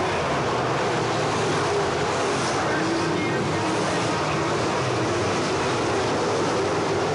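A pack of dirt late model race cars running at speed, their crate V8 engines blending into one steady, continuous engine noise.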